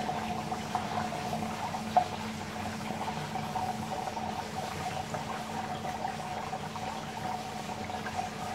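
Water running and filling in a model lift lock's chamber as the levels equalize, over a steady hum, with a single sharp click about two seconds in.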